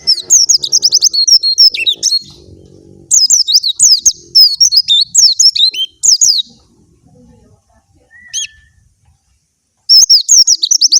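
Young white-eye (pleci) singing its song: fast strings of short, high, sliding chirps in three loud bursts, with a lull and a single short call around the eighth second.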